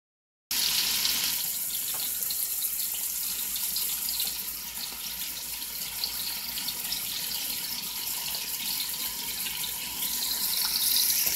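Diced chicken sizzling in oil in a frying pan: a steady hiss with fine crackle, starting about half a second in.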